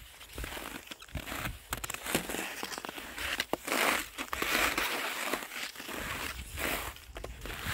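Footsteps crunching in snow, one step after another at an irregular walking pace.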